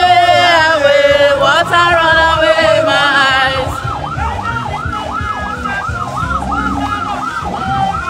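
Vehicle siren sounding: a held tone that steps down and back up in pitch for the first few seconds, then switches to a fast warbling yelp that rises and falls about two to three times a second.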